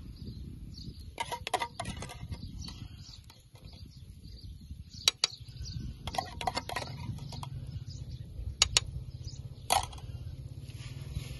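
Wood fire crackling under a steel frying pan: scattered sharp pops and clicks in small clusters over a steady low rumble.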